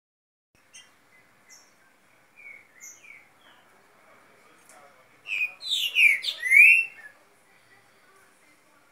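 Young green-winged saltators (trinca-ferro), about seven months old, singing in their cages: a few scattered short notes, then a loud burst of quick sliding song phrases between about five and seven seconds in.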